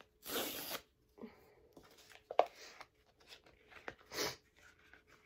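A kraft-paper envelope being cut and torn open with a knife: two short rips of paper about four seconds apart, with light paper rustling and a sharp click between them.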